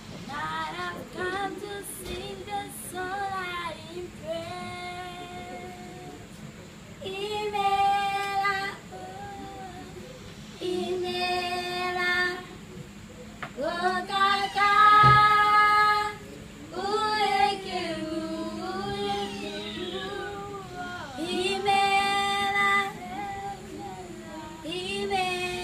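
Young girls' voices singing a serenade in a series of sung phrases with held notes, each a second or two long, broken by short pauses.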